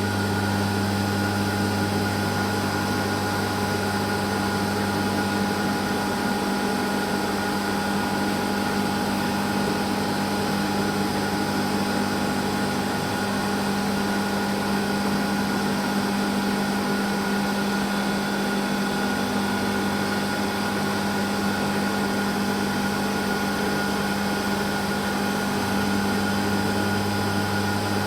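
Kunzmann WF7 CNC milling machine running steadily while milling aluminium rings: an even machine hum with a few constant whining tones above it. The deepest part of the hum fades a few seconds in and comes back near the end.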